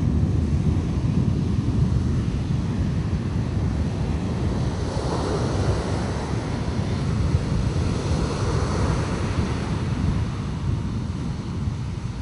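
Sea surf washing in under heavy wind buffeting the microphone, with a steady low rumble. A wave swells and washes through about five seconds in.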